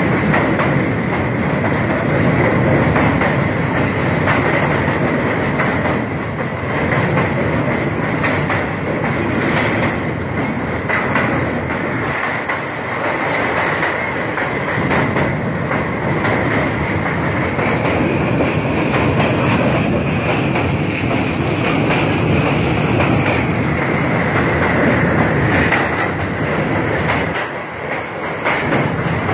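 Passenger train coaches running at speed over a steel truss railway bridge, heard from an open coach door. Wheels rumble and clatter on the rails, with a steady high ring over it all.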